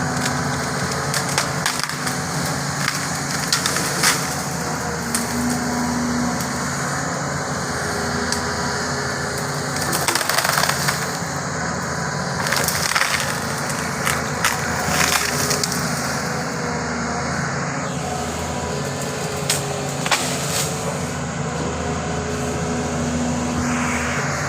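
Doosan 225 hydraulic excavator's diesel engine running steadily while mango tree wood cracks and splinters under the machine, in repeated sharp snaps. A denser run of cracking comes about ten seconds in.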